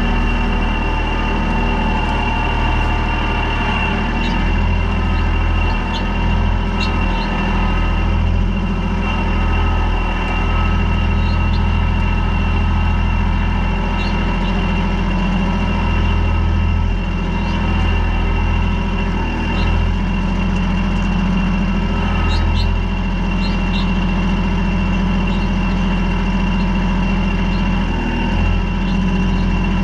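Kubota L3800 compact tractor's three-cylinder diesel engine running steadily, with a thin high whine over it and scattered faint clicks.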